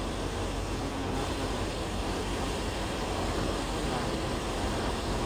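A car driving along a road, heard from inside the cabin: steady engine and tyre noise with no sharp events.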